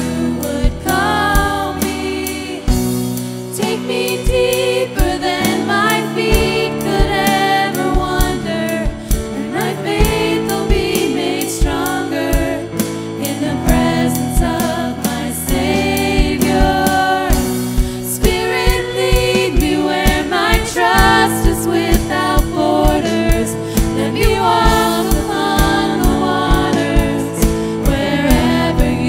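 Contemporary Christian worship song: voices singing over a band, with a steady drum beat.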